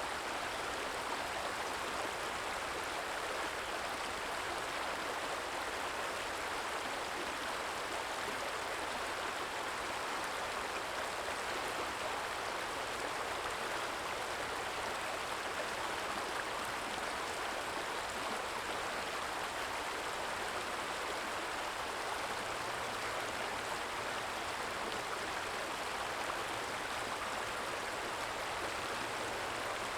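Small stream flowing, a steady soft trickle of running water.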